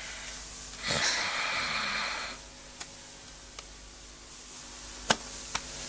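Bedclothes rustling softly for about a second and a half as a sleeping person is shaken, then a few faint clicks, over a low room hum.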